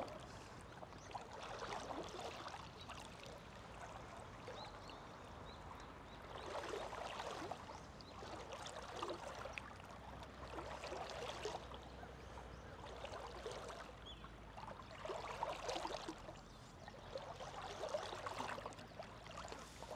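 Shallow water sloshing and trickling, faint, swelling in irregular surges every two to four seconds.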